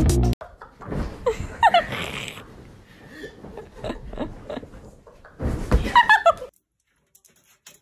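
A person's shrieking laughter in a room, in two loud outbursts with thumps and bumps among them, cut off suddenly near the end.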